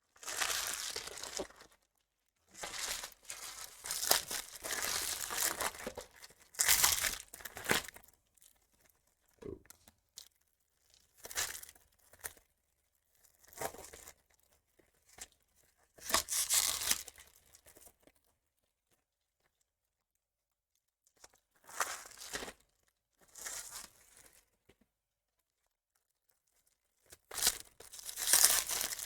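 Card pack wrappers being torn open and crinkled by hand, in a series of separate rips and rustles with short pauses between them, busiest near the start and near the end.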